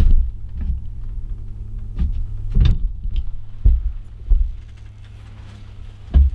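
A steady low hum with about seven irregular dull thumps, the loudest near the start, about two and a half seconds in and just before the end.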